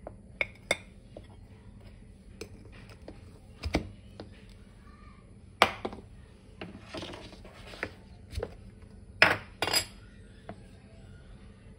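Dishes and cutlery clinking and knocking as they are handled, in about ten separate sharp clinks at irregular spacing, with a brief scraping sound about two-thirds of the way through.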